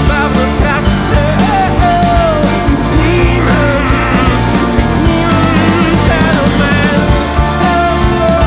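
A rock band playing live with a male lead singer: sung vocals over drums, bass guitar and electric guitar.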